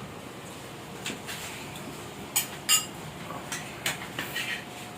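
Spoon and utensils clinking against a plate and dishes as food is served and eaten: a few scattered sharp clinks, the loudest two close together about halfway through.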